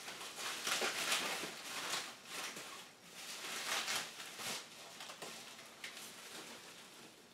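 Bubble wrap crinkling and rustling as a pistol-grip RC transmitter is pulled out of it, in irregular bursts that are loudest about a second in and again around four seconds, then die down.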